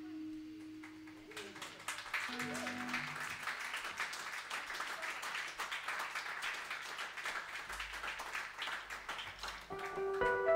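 A small audience applauding as a piece ends, after its last held note dies away. The clapping stops near the end, and plucked guitar notes begin the next piece.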